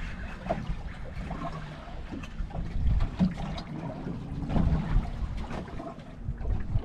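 Water slapping and lapping against the hull of a small boat, with scattered small knocks and a low wind rumble on the microphone.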